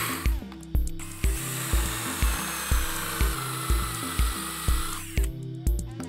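Cordless drill spinning a countersink bit into a steel mounting bracket from about one second in until about five seconds in, its whine dropping slightly in pitch as it cuts, then stopping. Background music with a steady beat, about two beats a second, plays throughout.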